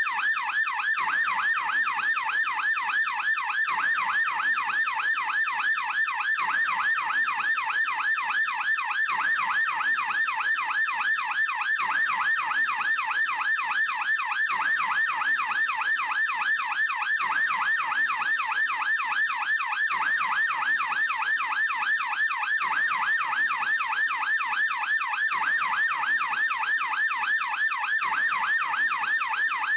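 Swiss police siren in fast yelp mode: a rapid, steady up-and-down wail that repeats several times a second without a break.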